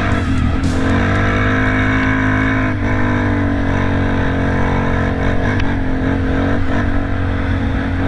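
Dirt bike engine running steadily while riding on beach sand, its revs dipping briefly about three seconds in, with background guitar music.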